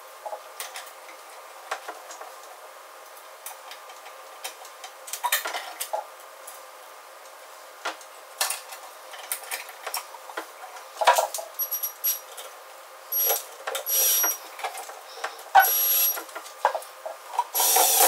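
Small metal clicks and clinks as a sheet-metal cover plate and its screws are handled and fitted, then a cordless drill-driver runs in about five short whining bursts in the second half, driving the plate's screws home.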